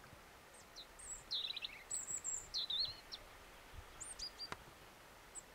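Songbirds singing: a string of short high chirps and quick whistled sweeps, with a fast falling trill early on, over a faint steady outdoor hiss.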